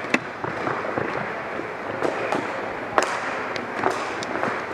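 Ball hockey play: several sharp clacks of sticks and ball on the court, the loudest near the start and about three seconds in, over a steady noisy haze.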